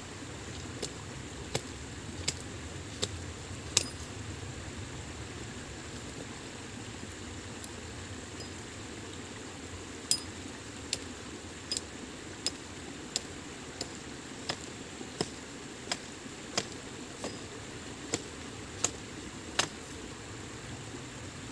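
Sharp knocks, a few scattered at first, then a regular train of them from about halfway through, roughly one every 0.7 seconds, some with a short ring. A steady rushing noise runs underneath.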